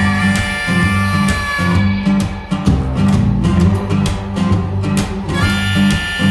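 Background rock music: an instrumental passage with guitar over a steady bass and drum beat.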